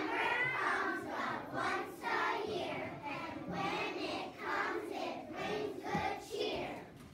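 A choir of young children singing together, the phrase dying away near the end.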